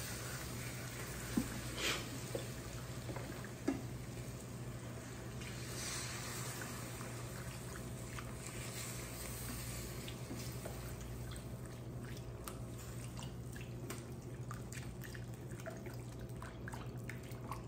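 Wire whisk stirring chicken broth into a flour-and-butter roux with onions in a stainless pan: steady wet stirring and sloshing, with a few light clicks of the whisk against the pan.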